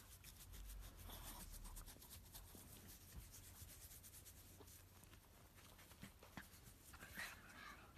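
Faint rubbing and scratching of a hand in a pug's fur as its belly is scratched, with fine scratchy ticks.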